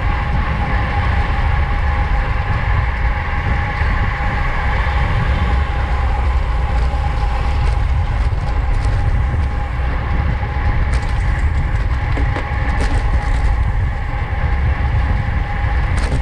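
Wind rushing over the microphone of a camera riding along on a racing bicycle at speed, a heavy steady rumble with a constant hum on top.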